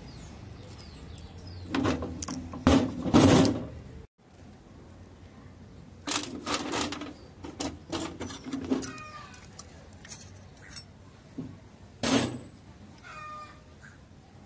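Bursts of metalworking noise as the rivets are taken out of a two-stroke Bajaj's riveted gear assembly (tren fijo). The noise comes in an irregular group about two to three seconds in, another from about six to nine seconds, and one short burst near twelve seconds.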